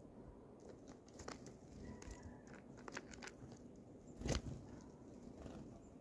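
Great tit pecking at wheat grain on a wooden feeder tray: scattered sharp pecks and taps, with a louder thump about four seconds in.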